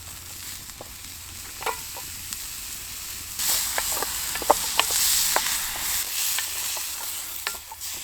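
Diced bacon frying in a pan over a campfire: a steady sizzle, louder from about three and a half seconds in, with sharp pops and crackles.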